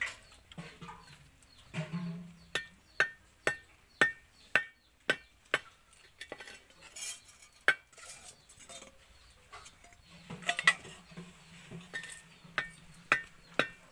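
Sharp metallic clicks and taps, roughly two a second, as vegetables are cut over a stainless steel bowl and pieces drop into it. Near the end, steel bowls clink as they are picked up.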